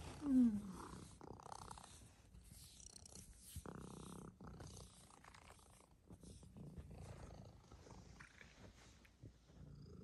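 Sphynx cat purring close to the microphone, with one short falling meow just after the start.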